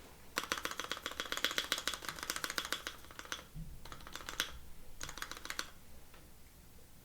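Small, fast plastic clicking and clacking from mechanical-keyboard parts being worked by hand. There is one long run of rapid clicks, then two short bursts near the middle and later on.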